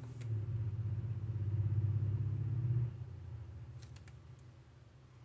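A low hum from an unseen machine, louder for the first three seconds and then fading away. Near the end come a few light clicks as the lure is set into its metal clamp holder.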